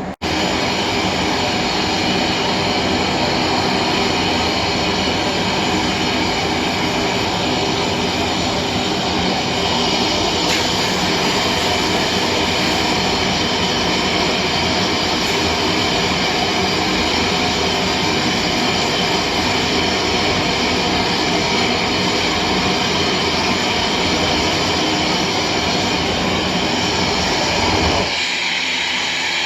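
Blacksmith's forge running with a steady rushing noise while the axe heats up for the quench. Near the end the low rumble drops away.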